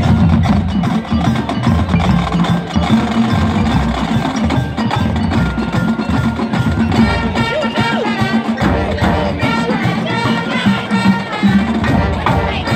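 High school marching band playing its field show, with the front ensemble's mallet percussion (marimbas and other keyboard percussion) standing out among the band's sustained chords.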